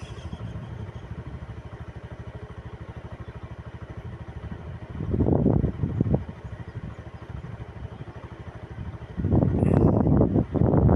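A small engine running steadily with a fast low pulse. Louder, rougher noise rises over it briefly about five seconds in and again near the end.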